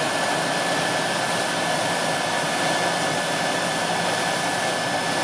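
Tractor and Nodet seed drill rig running steadily: an even rushing noise with a thin high whine held throughout.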